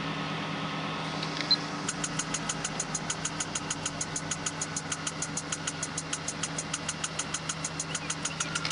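Car audio system with Kicker CompVX 12-inch subwoofers starting a bass-music track about two seconds in: a fast, even ticking beat over a steady low hum.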